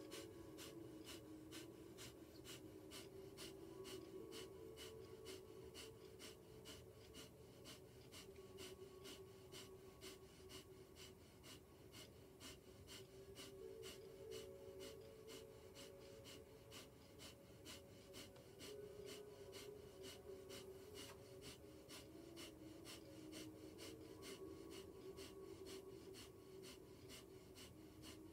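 Breath of fire: rapid, rhythmic, forceful exhalations through the nose, about three a second, kept up evenly and faintly throughout.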